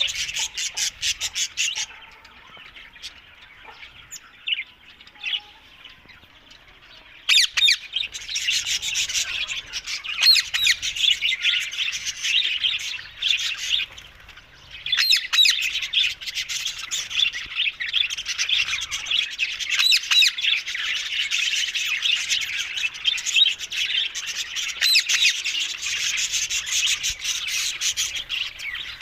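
Rose-ringed (Indian ringneck) parakeets squawking and chattering in rapid, dense calls. The calls are sparse at first and become almost continuous from about seven seconds in, with a brief lull about halfway through.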